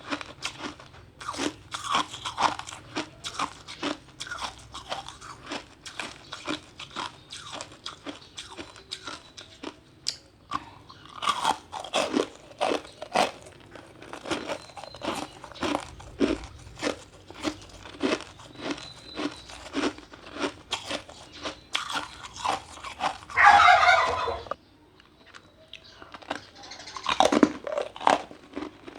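Ice being crunched and chewed between the teeth, a steady run of sharp crunches several times a second. About three-quarters of the way through there is a louder sound with a wavering pitch, lasting a second or two, then a short lull before the crunching resumes loudly.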